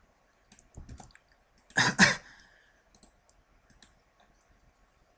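Computer mouse clicking: a few light clicks, then a louder pair of clicks about two seconds in, then scattered faint ticks.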